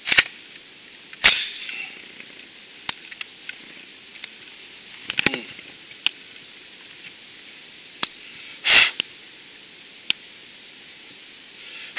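Short hissing puffs of breath blown at a rifle's mud-caked iron sights to clear the debris, several of them a few seconds apart, the loudest about a second in and near nine seconds. Faint clicks and taps of the rifle being handled come between the puffs.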